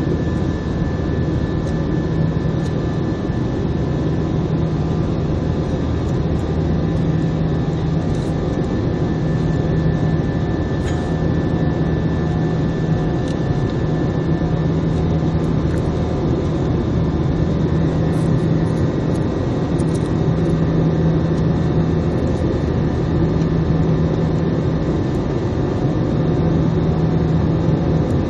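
Jet airliner engine and airflow noise heard inside the passenger cabin, a steady drone with faint constant tones and a low hum that swells and drops every few seconds.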